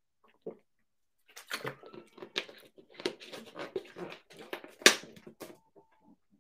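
Handling noise: irregular rustling and clicks as a large plastic drink bottle is lowered and put aside, with one sharper knock near the end.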